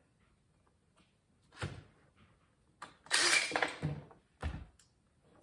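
Tools being handled on a workbench: a few dull thunks and a brief clattering knock about three seconds in, with no motor running.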